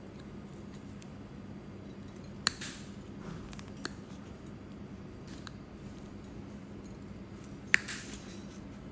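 Steel nail nippers snipping a thick, crumbly toenail: two sharp snips about five seconds apart, with a fainter click between them, over a steady low hum.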